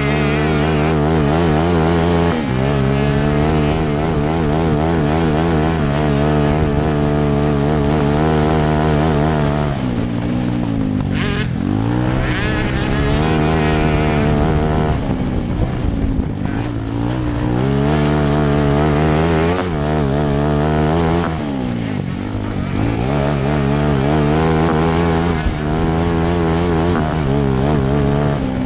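A grass kart's small engine at high revs, heard from on board. Its pitch wavers constantly, and about four times it drops and climbs back as the throttle is lifted and reopened.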